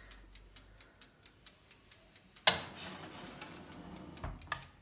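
Steady ticking of the oven's timer, about four ticks a second. About two and a half seconds in comes a sharp clack and a rush of noise that fades over a second or so, and near the end a thump and click as the oven door is handled.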